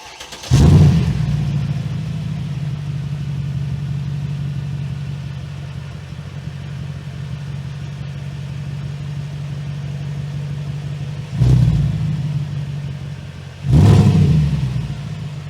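Mercedes ML63 AMG's 6.2-litre V8 exhaust starting up with a loud flare, then settling to a steady idle. It is blipped twice near the end, about two seconds apart.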